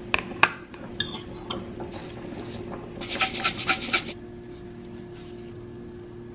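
A few sharp clinks of a glass food container and its lid against a ceramic plate and table. Then, about three seconds in, roughly a second of rapid scraping strokes as marinara sauce is scraped out of the glass container onto the plate, followed by a steady low hum.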